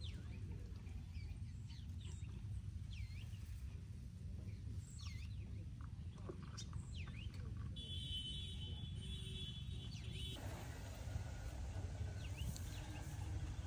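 Outdoor rural ambience: scattered bird chirps over a steady low rumble, with a steady high trill for about two seconds past the middle.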